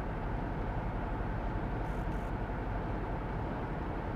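Steady road and engine noise heard inside the cabin of a moving high-top vehicle.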